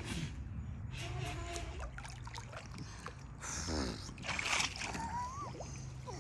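Water splashing and sloshing close to the microphone around people floating in life jackets, with the loudest splashes about four to five seconds in.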